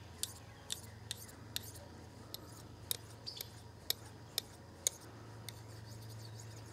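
Knife blade drawn along a hand-held sharpening rod in short, light scraping strokes, about two a second, stopping near the end.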